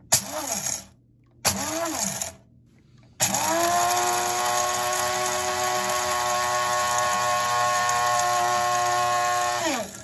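Capresso one-touch blade coffee grinder grinding coffee beans while standing on a table: two short pulses of about a second each, then a continuous run of about six and a half seconds at a steady pitch that winds down near the end. Each start rises in pitch as the motor spins up.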